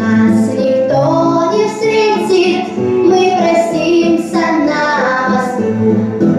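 A girl singing a Russian romance in drawn-out, gliding sung notes over steady accompaniment.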